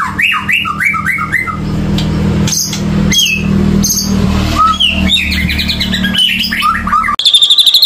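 Songbird song of quick, slurred, mostly descending whistles over a steady low hum, played as a lure recording to prompt a white-rumped shama that has gone silent. About seven seconds in it cuts abruptly to a fast, even run of high chirps.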